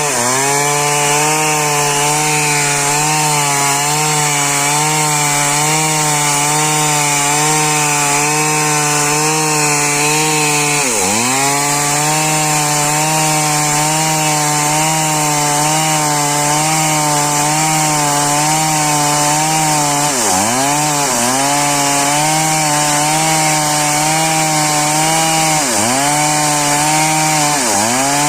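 Chainsaw running at high revs while cutting wood, its pitch wavering slightly. Its pitch drops sharply and recovers once partway through and several more times in the second half.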